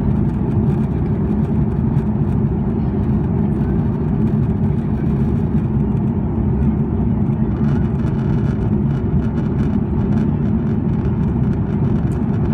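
Steady low drone of cabin noise inside a KC-30A (Airbus A330 MRTT) tanker in flight: engine and airflow noise.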